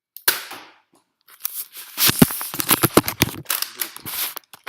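Handling noise from the recording device being moved about: a sharp knock, then a dense run of bumps, scrapes and rustling.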